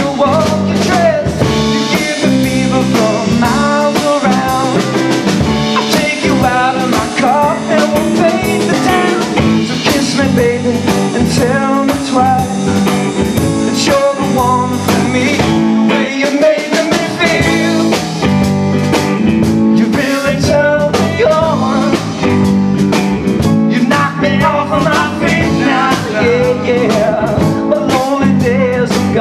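Live rock band playing electric guitar, bass guitar and drum kit, with a wavering melody line over a steady beat; the bass and drums drop out for a moment about halfway through.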